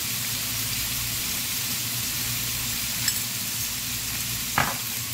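Diced chicken breast sizzling steadily in hot avocado oil in a cast iron skillet. A faint click a little after three seconds and a sharper knock near the end.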